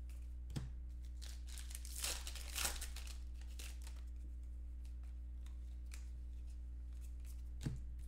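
A foil trading-card pack being torn open and its wrapper crinkled: brief rustling bursts and a couple of sharp clicks, over a steady low electrical hum.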